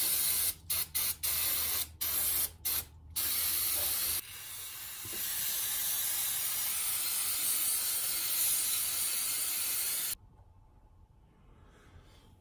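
Aerosol parts cleaner hissing from a spray can as it washes metal filings off steering-shaft U-joint parts: a quick run of short bursts, then one long spray of about seven seconds that cuts off abruptly near the end.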